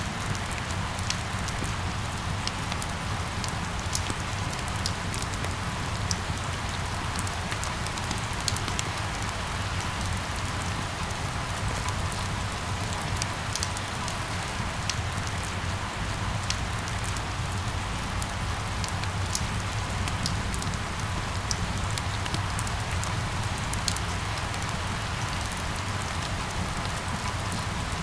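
Steady rain falling, with many scattered sharp drip ticks over the hiss and a low steady rumble underneath.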